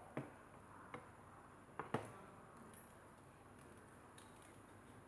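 A few light clicks and taps of small parts and tools being handled while working on fan wiring, the loudest a quick double click about two seconds in.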